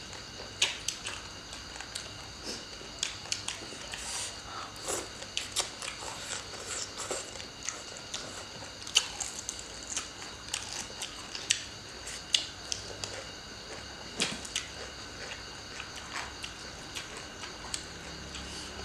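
Close-up chewing and crunching of green papaya salad and raw vegetables, a run of irregular crisp crunches and clicks.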